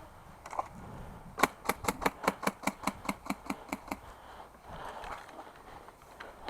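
Airsoft rifle firing a rapid string of about sixteen shots, roughly seven a second, for about two and a half seconds.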